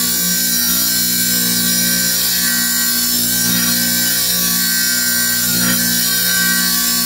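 Wet tile saw running with its diamond blade spinning: a steady motor hum under an even hiss.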